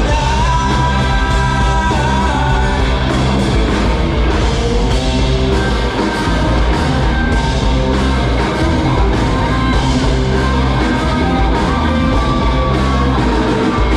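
Rock band playing live, with a singer holding long notes over the band.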